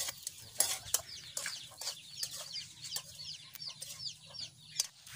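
Metal spoon clinking and scraping against a metal pan as meat is stirred over a wood fire, in sharp irregular knocks. Chickens call in the background with short, rapidly repeated high notes.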